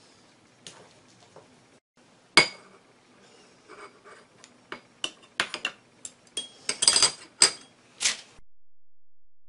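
Chopsticks and a porcelain spoon clinking against ceramic dishes: one sharp clink about two and a half seconds in, then a run of quicker clinks and taps from about five to eight seconds.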